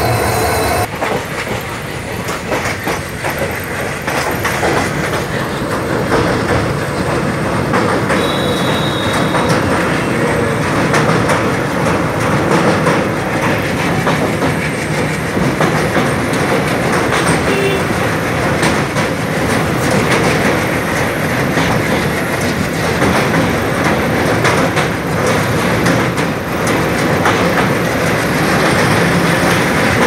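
Indian Railways train running over the old iron Yamuna rail bridge: a steady loud rumble with the clatter of wheels over rail joints. A brief high tone comes about eight seconds in.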